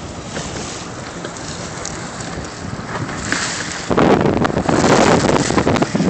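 Wind buffeting the microphone over water splashing along a boat's hull. About four seconds in it turns much louder and rougher, with a few sharp clicks.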